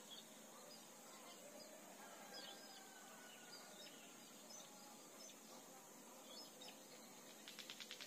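Near silence: faint rice-field ambience, with a steady high insect drone and scattered small bird chirps, and a quick run of clicks near the end.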